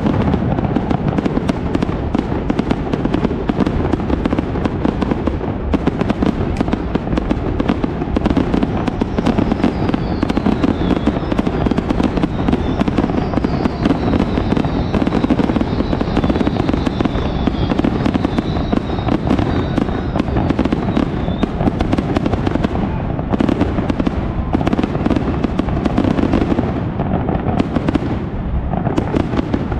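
Aerial fireworks display: a dense, continuous barrage of shell bursts and crackles, with a faint high wavering whistle through the middle.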